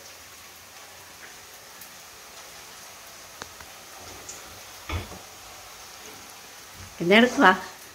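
Faint steady hiss with a low knock about five seconds in, fitting an aluminium pan being set down on a gas stove, then a short burst of voice near the end.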